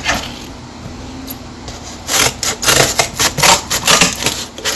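Scissors cutting through cardboard: a quick, irregular run of crisp snips starting about two seconds in, several a second.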